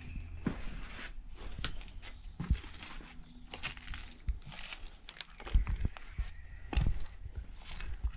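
Footsteps crunching irregularly over leaf litter, moss and broken debris, with the heaviest footfalls a little over five and a half and nearly seven seconds in.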